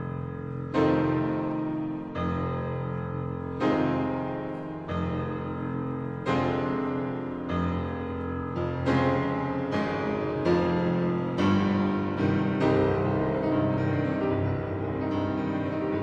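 Background piano music: slow chords struck about once a second and left to ring.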